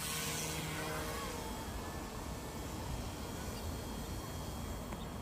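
Small electric RC helicopter flying overhead: a faint, steady whir of its motor and rotor blades, with a low, even hum running through it.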